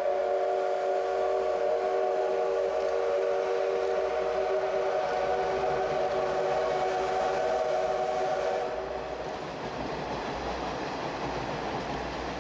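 Steam whistle of steam locomotive C58 239 sounding one long, steady blast of several tones that stops about nine seconds in, leaving the noise of the train running.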